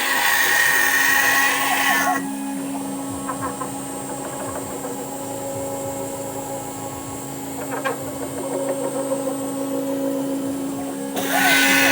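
CNC router cutting plastic. The loud cutting noise drops off about two seconds in, leaving a quieter steady machine hum with a single click, then comes back abruptly near the end.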